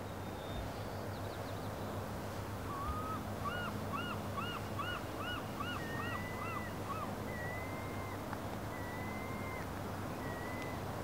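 A bird calling: a quick run of about eight arched notes, roughly two a second, then several drawn-out whistled notes. Under it is a steady low background noise.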